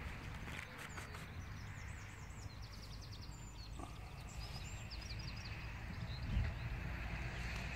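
Outdoor ambience: a low rumble of wind on the microphone, with small birds chirping and trilling in the background. A single soft thump comes a little past six seconds in.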